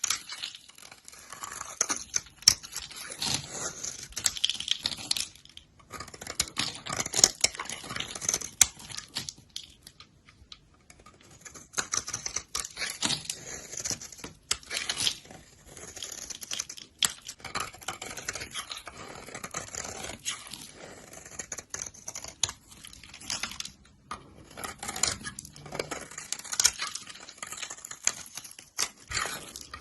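A knife cutting and scraping through dry soap: dense, crunchy crackling in strokes, broken by short pauses, the longest about ten seconds in.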